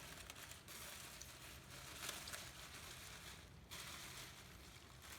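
Faint rustling and handling noises, with stretches of near silence.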